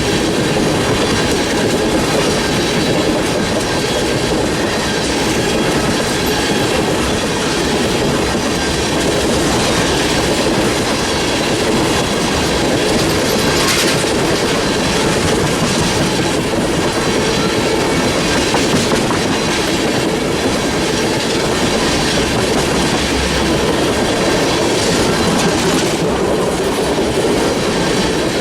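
Freight train of empty tank cars rolling past, a steady rumble of steel wheels on rail with a sharp click over a rail joint about halfway through.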